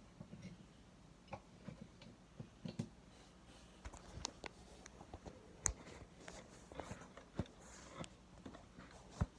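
Scattered clicks and taps from a G1 Optimus Prime reissue Transformers toy being handled and posed, its plastic parts knocking and snapping into place. Two sharper clicks stand out, about five and a half seconds in and just before the end.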